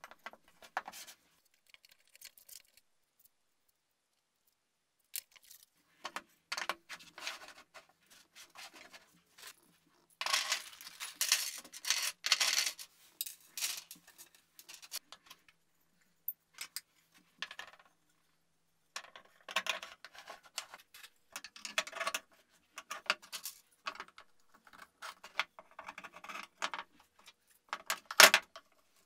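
Plywood pieces knocking on a wooden workbench and steel bolts, nuts and washers clinking as they are handled, in short bursts of clatter with a few quiet gaps and a sharp clack near the end.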